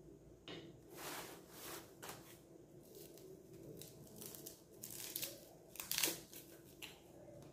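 Faint rustling and crinkling of crumpled packing paper and plastic wrap as hands rummage in a cardboard box and unwrap a small plastic-wrapped item, in a series of short rustles, the loudest about six seconds in.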